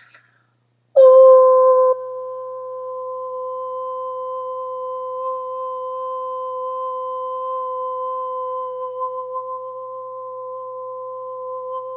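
A woman toning: one long, steady hummed note starting about a second in, loudest at the start and then held evenly at the same pitch for about ten seconds.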